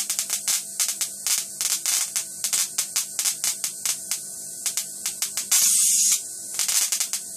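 High-voltage discharge at the terminals of an oscilloscope CRT: irregular sharp snapping several times a second over a steady electrical hum. About five and a half seconds in, an arc strikes and hisses loudly for about half a second, with a shorter hissing flare about a second later.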